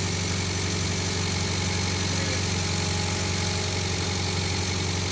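Ford CL-40 skid-steer loader's engine running steadily at idle.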